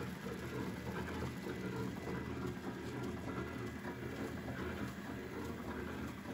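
Ilapak Carrera 500 horizontal flow-wrapping machine running steadily as it wraps cookies: a continuous mechanical hum from its drives and conveyor, with light repeated ticking.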